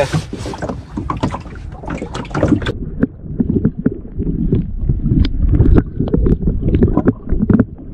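Water splashing and wind on the microphone for the first few seconds. From about three seconds in, the sound turns muffled and dull: a camera held underwater beside the pike, with low rumbling and knocks of water and handling.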